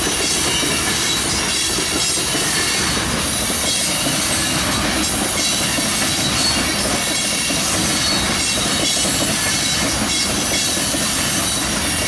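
Tank cars of an ethanol freight train rolling past: a steady, loud rumble of steel wheels on rail, with a thin high wheel squeal running through it.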